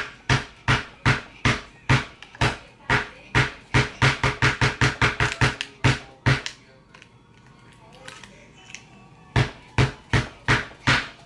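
Repeated knocks of a thin rod being jabbed down, about three a second. They stop about six seconds in and resume for a few knocks near the end.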